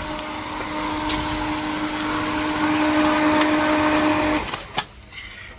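Pool pump's electric motor humming steadily with a noisy rush, then cutting off abruptly about four seconds in, followed by a single sharp click, the pump being switched off.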